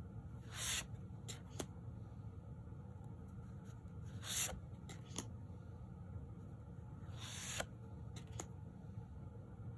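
Tarot cards being slid off the face of a deck one at a time: three soft swishes about three seconds apart, with a few faint taps of card edges in between, over a low steady hum.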